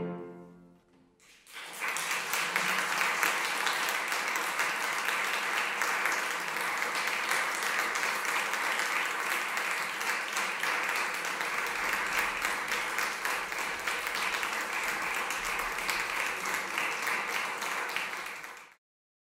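Audience applauding steadily. It starts a moment after the last sung and piano notes die away and cuts off suddenly near the end.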